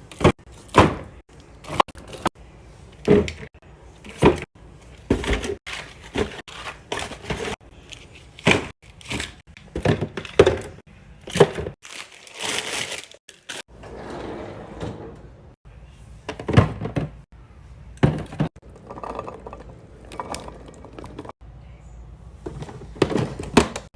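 Irregular series of sharp clunks, clicks and knocks as containers and food items are handled and set down while a fridge is restocked, with a brief rush of noise a little past halfway.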